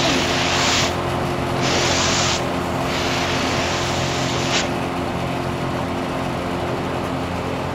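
A small electric motor runs with a steady hum, under a rushing hiss that swells in bursts of about a second, three times in the first five seconds.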